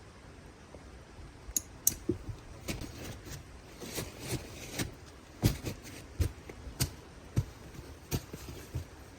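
A string of irregular sharp clicks and knocks, the loudest about halfway through, over a faint steady hiss.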